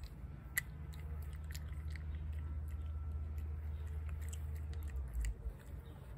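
A cat eating wet food from a plate: irregular small wet chewing clicks and smacks, over a steady low rumble, with a soft thump about five seconds in.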